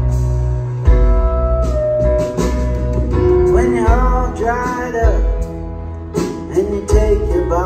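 Live rock band playing a song, with guitar and keyboard over a steady low end and regular drum hits. A man sings a phrase in the middle and starts another near the end.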